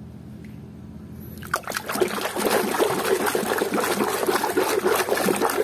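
Water splashing and sloshing in a plastic basin as a hand scrubs a muddy toy figure in soapy water. The splashing starts about one and a half seconds in, after a quiet moment.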